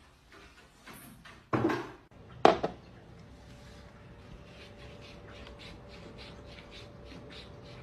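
Two thumps about a second apart, then faint rapid ticking over a faint steady hum.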